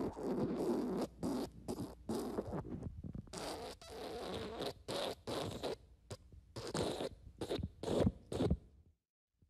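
Fart sound effects: a run of many short sputtering blasts of uneven length, one after another, stopping about half a second before the end.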